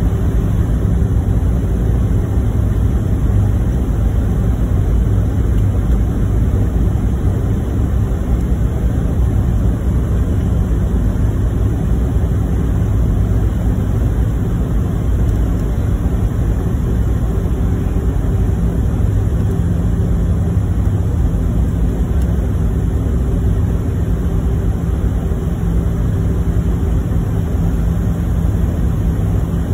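Airliner cabin noise: the steady rumble of the engines and rushing air heard from inside the cabin, with a constant low hum under it.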